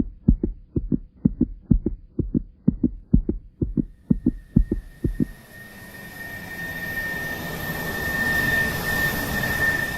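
Heartbeat sound effect thumping in quick pairs, then a rising swell of hiss with a steady high tone that grows louder and cuts off suddenly at the end.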